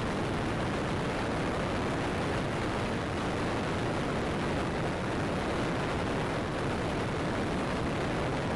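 Steady wind noise from the slipstream rushing over the camera microphone, held out of an open window of a light plane flying at about 110 mph, with the aircraft's engine drone mixed in.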